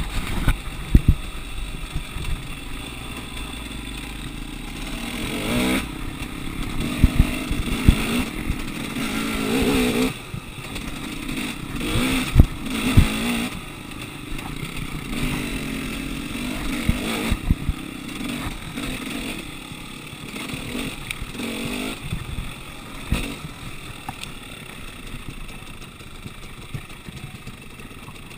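Dirt bike engine running as it is ridden along a rough forest trail, revving up and dropping back several times. Sharp low knocks come through as the bike jolts over the bumps.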